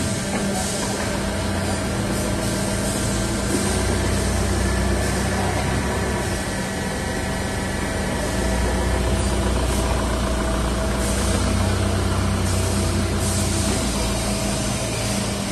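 Hydraulic power unit of a four-sided rotary wood clamp carrier running with a steady hum, its low rumble growing louder twice and easing off again.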